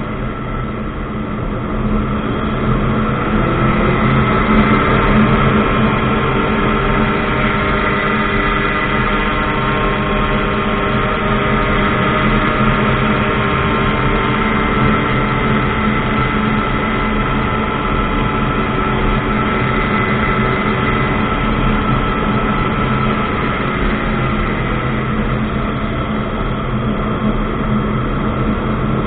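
Ultralight aircraft engine and propeller running steadily. The engine note rises a few seconds in, holds, and eases back down near the end.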